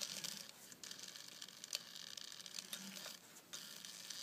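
Faint scattered light clicks and ticks from an old Atlas lathe's scroll chuck and spindle being turned slowly by hand, while a dial indicator checks the runout of a shaft held in the jaws.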